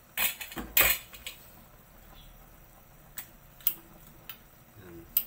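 Metal ladle clinking and scraping against a metal soup pot as cooked cherry tomatoes are crushed in it: a quick cluster of clinks in the first second, then a few single sharp clicks.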